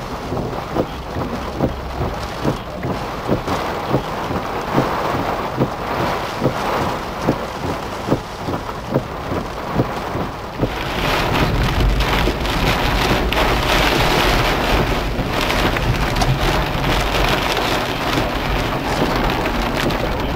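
Heavy thunderstorm rain, with a regular tapping of drops, under two a second, through the first half. About ten seconds in, the downpour grows louder and denser, over a deep low rumble.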